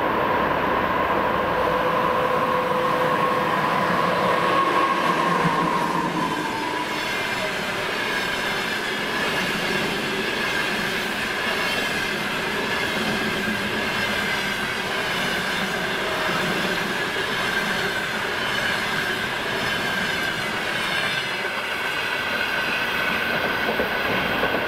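EP2K electric passenger locomotive passing at speed with its train of coaches. A steady whine from its commutator traction motors drops slightly in pitch about five to six seconds in as the locomotive goes by, then gives way to the steady rush and clatter of the coaches' wheels on the rails, with a thin high wheel-squeal tone.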